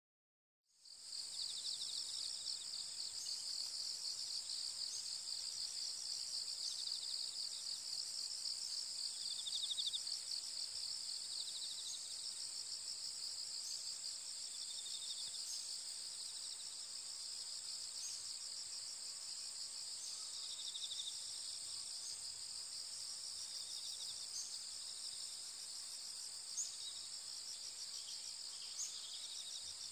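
Steady high-pitched chorus of singing insects, with short chirps breaking through now and then.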